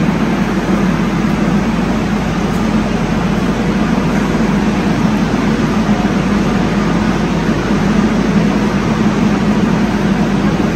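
Steady, unbroken hum and rush of a metro train standing at the platform, its onboard equipment running.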